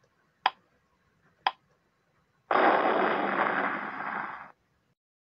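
Countdown timer sound effect: two sharp ticks a second apart, then about halfway through a loud hissing burst of noise that lasts about two seconds and fades away, marking the end of the count.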